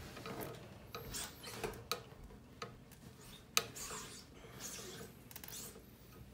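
A paper towel rubbing and wiping on the glass wall of a reptile tank, faint scattered scuffs with a sharper tap about three and a half seconds in.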